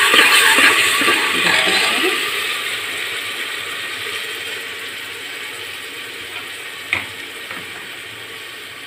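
Onion, garlic and ginger paste frying in hot oil in an aluminium pressure cooker: a loud sizzle that fades steadily as it cooks. A few ladle strokes against the pot in the first two seconds, and one sharp click about seven seconds in.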